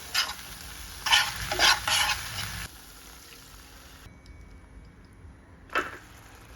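Food sizzling in hot oil in a pan while it is stirred, with several louder scrapes and knocks of a spatula against the pan. The background sound changes abruptly a couple of times at edits.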